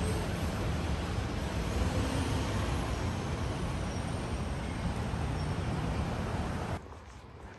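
Street traffic noise: a steady rush of passing vehicles that cuts off suddenly near the end, giving way to much quieter surroundings.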